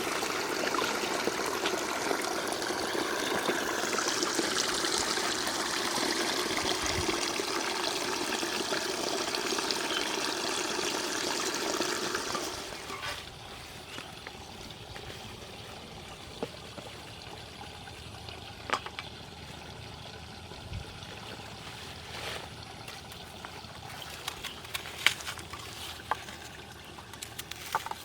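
Water pouring and trickling steadily, then dropping off about twelve seconds in to a quieter background with a few scattered small knocks or splashes.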